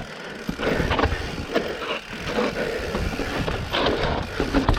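Mountain bike riding down rock slabs: tyres rolling and scrubbing over rock, with scattered knocks and rattles from the bike and a low rumble of wind on the microphone.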